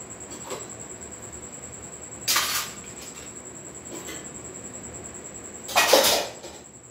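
Two short clattering noises of kitchen things being handled, about two seconds in and again near the end, the second one longer and louder, over a faint steady high whine.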